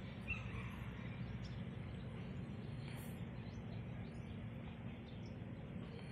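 Faint outdoor ambience: a steady low rumble with scattered, faint high bird chirps.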